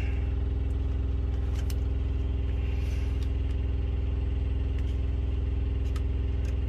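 Idling truck engine giving a steady, even low drone, with a few faint clicks over it.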